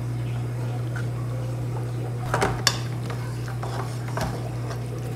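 Wooden spoon stirring and scraping ground beef in an aluminium pot, with a few sharp knocks against the pot about two and a half seconds in and lighter taps later. A steady low hum runs underneath.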